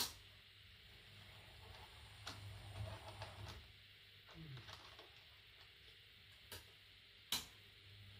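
An HO-scale model train running slowly through turnouts, a faint low hum that swells a couple of times. Several sharp clicks, the loudest right at the start and again near the end.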